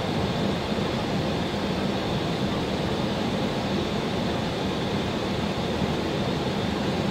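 Steady in-flight cockpit noise of an Airbus A321: an even rush of air with a low hum underneath, no distinct events.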